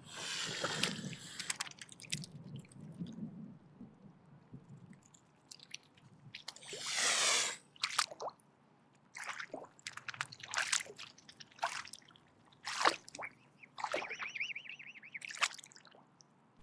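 Mute swan hissing as a defensive threat: a run of harsh, breathy hisses, the longest about seven seconds in, followed by shorter hisses and clicks and a brief pitched note near the end.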